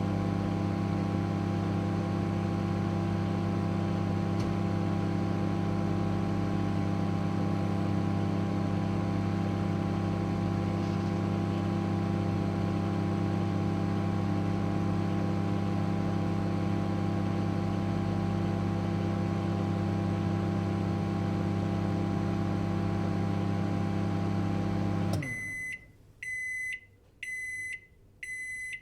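Microwave oven running with a steady electrical hum, which stops near the end of the cooking cycle and is followed by four evenly spaced high beeps, about one a second, signalling the cycle is finished.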